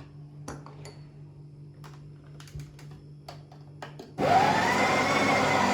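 A few light clicks, then about four seconds in the motor of a SHARDOR electric conical burr coffee grinder starts suddenly, rises briefly in pitch and runs steadily, grinding coffee beans at a finer setting than French press.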